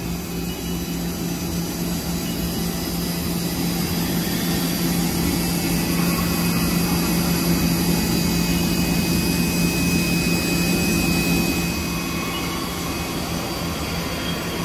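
2005 Haas GR-710 CNC gantry router's spindle running an end mill along an aluminium I-beam: a steady machining noise over a low hum. A thin high whine comes in about halfway and fades a few seconds later.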